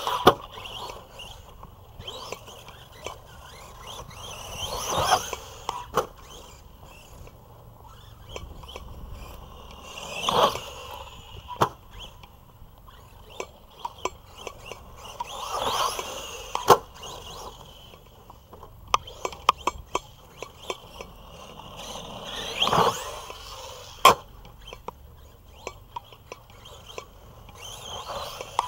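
Arrma Big Rock V3 RC monster truck, a 1/10-scale electric 4x4, whining in bursts of about a second as it accelerates across dirt, with several sharp knocks from landings and tumbles off the jumps.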